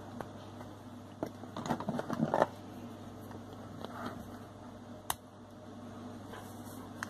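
Small clicks and knocks of a single-lever mixer tap's cartridge and a small tool being handled as the tap is taken apart, with a quick run of knocks about two seconds in and one sharp click about five seconds in. A steady low hum runs underneath.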